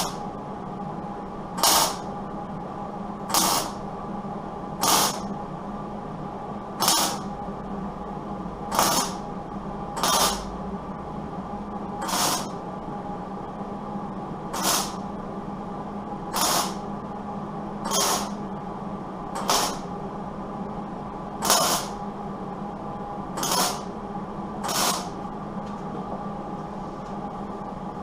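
Repeated short hisses of pressurised spray or air, about fifteen of them, each under half a second and one every one and a half to two seconds, stopping a few seconds before the end. A steady mechanical hum with a few fixed tones runs underneath.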